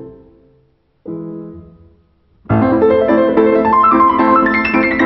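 Background piano music: a phrase fades out, a single chord rings and dies away, then a busy passage of quick notes begins about halfway through, with a falling run near the end.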